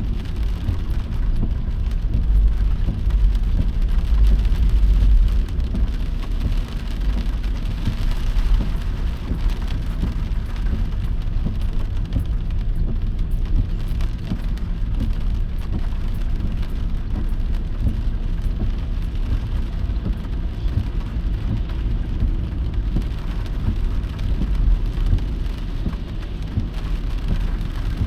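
Heavy rain falling steadily, with a deep low rumble underneath that swells a little a few seconds in.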